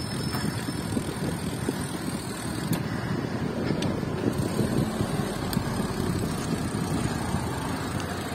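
Steady road noise while riding a bicycle past traffic: an even, low rumble of vehicles and wind with a few faint clicks.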